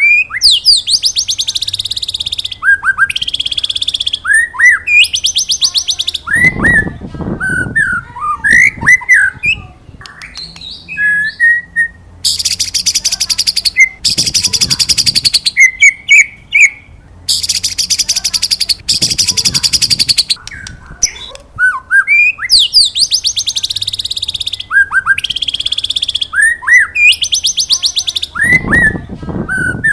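White-rumped shama singing: quick whistled notes mixed with long, high, fast buzzing trills, the 'wit wit cerrrr' pattern, repeated over and over.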